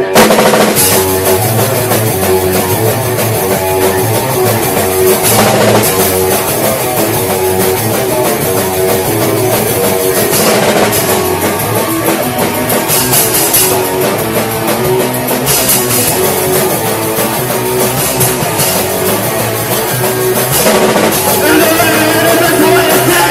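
Rock band rehearsal: two guitars, bass and drum kit playing together, the whole band coming in at once right at the start, with loud cymbal hits every few seconds.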